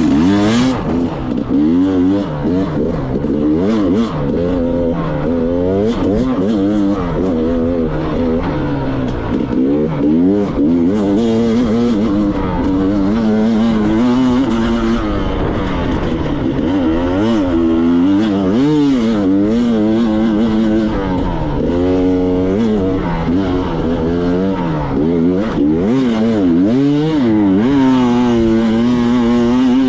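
Enduro motorcycle engine revving up and down over and over, its pitch rising and falling every second or two as the throttle is worked.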